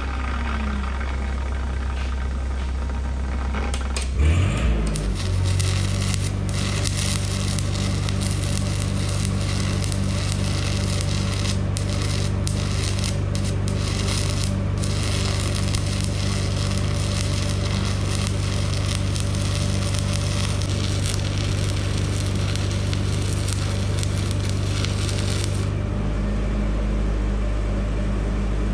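Arc welding a crack in a backhoe dipper stick: the arc crackles steadily from about five seconds in until near the end, over the steady hum of the welding machine, which changes pitch as the arc starts and again when it stops.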